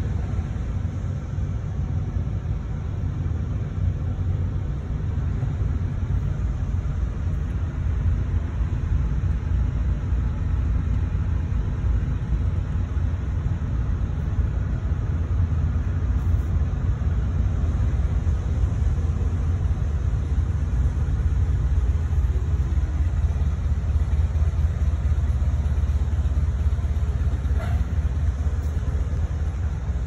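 Steady low rumble of a car on the move: engine and road noise.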